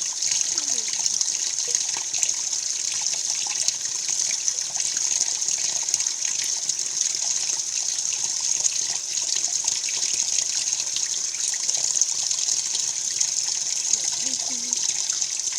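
Washing machine filling with water: a steady hiss of running water.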